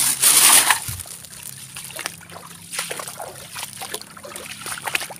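Shallow stream water trickling, with small splashes and knocks as someone wades through it. The first second is a louder rustling rush, most likely the plastic bag being handled.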